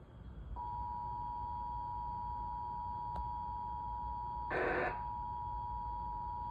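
Emergency Alert System attention signal: two steady tones sounding together, starting about half a second in, over a low rumble. A faint click comes about three seconds in, and a short, louder burst of noise breaks the tones for under half a second at about four and a half seconds.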